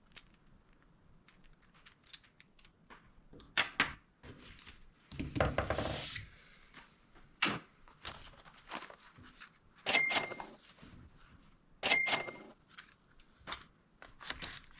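Tackle and packaging being handled: scattered light clicks, a crackle of packaging for about a second around five seconds in, and three sharp clicks with a brief ringing tone about four, ten and twelve seconds in.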